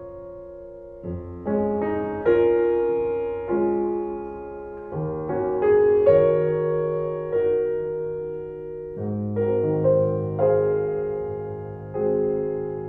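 Slow, gentle solo piano music: single notes and chords struck about once a second and left to ring and fade.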